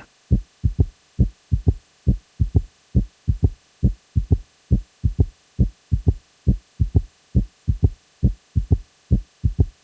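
Heartbeat with an added third heart sound (S3): short low thumps repeating in lub-dub-dub triplets, the 'Kentucky' rhythm, about one cycle a second. The extra beat comes just after S2 in early diastole, produced by rapid filling of the ventricles; it is also called a ventricular gallop.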